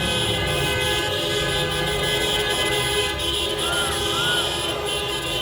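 Many vehicle horns honking at once in long held blasts, several pitches sounding together over a steady crowd-and-traffic din. About four seconds in, two short rising-and-falling tones sound over them.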